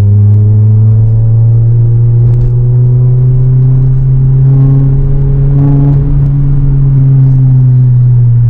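Honda Civic Type R FN2's 2.0-litre four-cylinder engine and exhaust droning loudly inside the cabin. The pitch rises slowly over the first few seconds as the car gathers speed, then eases off slightly near the end.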